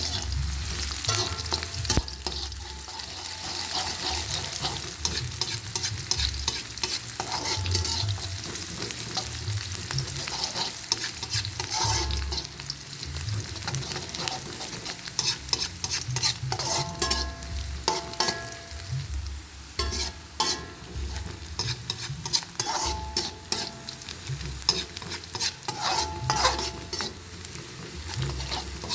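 A stir-fry sizzling in hot oil in a pan while a metal spatula stirs it, with frequent clicks and scrapes of the spatula against the pan.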